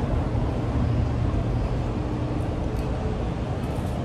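Steady low background rumble, even throughout with no distinct events.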